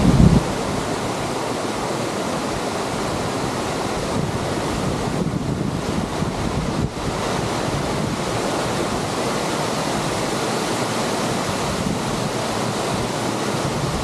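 Steady rush of sea surf with wind on the microphone; a loud low wind rumble drops away just at the start.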